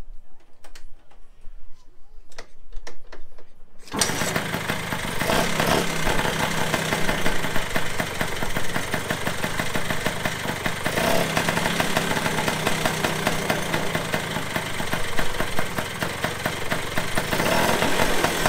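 1974 Vespa Rally 200's single-cylinder two-stroke engine being kick-started: a few knocks of the kick-start, then about four seconds in it catches and keeps running steadily and loudly.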